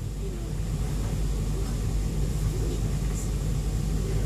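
Steady low rumble and hum inside a stationary E2-class tram, from its onboard machinery running while it stands.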